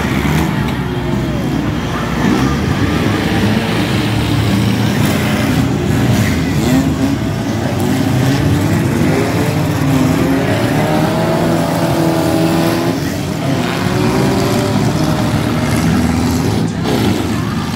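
Engines of several demolition derby cars running and revving at once, their pitches rising and falling over one another.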